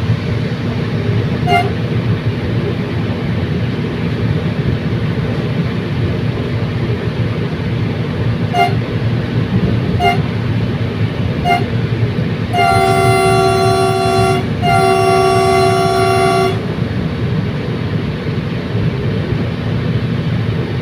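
Commuter train running with a steady low rumble, its horn giving several short toots and then two long blasts about halfway through.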